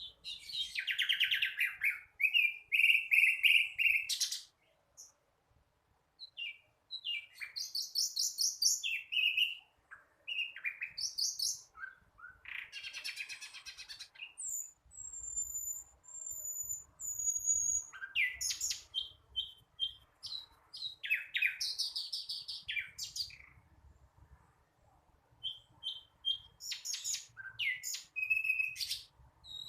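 A young sikatan londo flycatcher singing in bursts of rapid chattering trills and chirps with short pauses between them, with a few thin, high whistled notes a little before the middle. It is an immature song that the bird is still learning.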